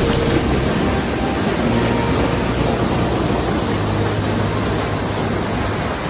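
Steady rush of a waterfall in spate, an even roar of fast-flowing high water.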